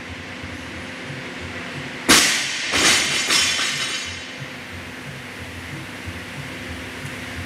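A 55 kg barbell loaded with bumper plates dropped from overhead onto the rubber gym floor about two seconds in: one loud bang, then two smaller bounces, with the plates' ringing rattle dying away over about a second.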